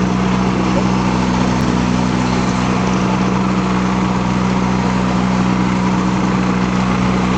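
Flex-wing microlight trike's engine running steadily at idle on the ground, an even drone that holds the same pitch throughout.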